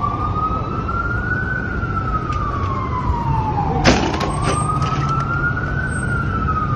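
Emergency vehicle siren in a slow wail, rising and falling about every four seconds, over low street traffic noise. About four seconds in, its pitch dips sharply and climbs again, with a few clicks.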